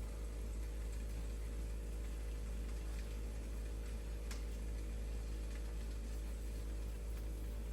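Steady low hum under a soft hiss with a few faint scattered ticks, one a little clearer midway: an omelette cooking gently in a covered frying pan on low heat.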